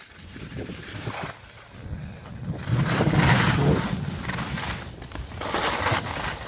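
Wind buffeting the microphone during a downhill ski run, with the hiss of skis sliding on snow, getting louder about three seconds in.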